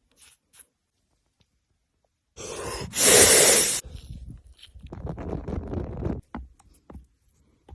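A loud hiss about three seconds in, then softer crackling and rustling with a few small ticks, from cooking over a burning Swedish log fire. Silent gaps fall between short clips.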